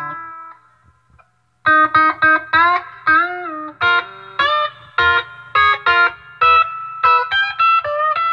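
Electric guitar through an Acoustic Control Corp 260 solid-state amp head and 2x12 cabinets, on a lead-and-rhythm setting with a little reverb. A chord rings out and fades, there is a short pause, then a run of short picked chords and single notes with one bent note about three seconds in. A low steady hum sits under the playing.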